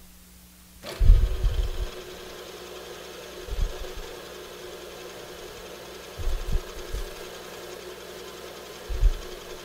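Milling machine spindle switched on about a second in and running steadily with an edge finder chucked in it, a few short low thumps at intervals over the motor sound.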